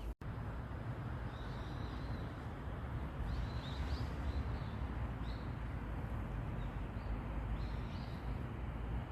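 Small birds giving short, high chirps every second or so, over a steady low rumble of city traffic.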